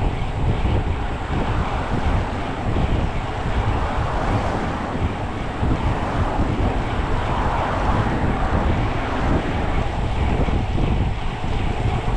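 Wind buffeting the microphone of a camera riding on a moving bicycle: a steady rush of air with a gusty low rumble.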